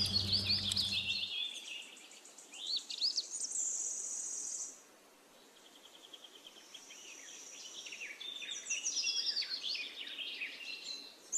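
Wild birds singing and calling: a busy mix of quick chirps, trills and whistled notes, with a long high trill about a third of the way in. A low hum underneath cuts off about a second in.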